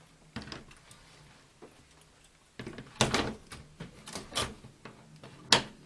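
Olympia SM7 portable typewriter being seated into its metal base plate: handling knocks and clatter, then a single sharp click near the end as the front spring catches lock into the base plate's holes.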